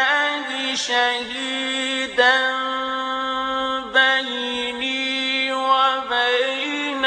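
A male reciter chanting the Quran in the melodic mujawwad (tajweed) style, one solo voice holding long, steady notes with ornamented turns and short breaths between phrases.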